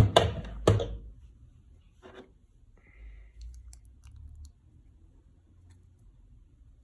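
Two sharp knocks of kitchen utensils against a bowl in the first second, a softer knock about two seconds in, then faint handling noises over a low rumble.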